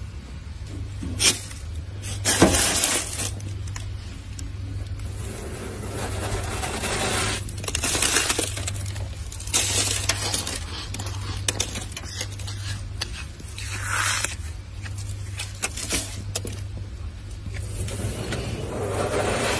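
Thick freezer frost being scraped, a run of crunchy scraping strokes of varying length with loose ice crystals clinking, the loudest about two and a half seconds in.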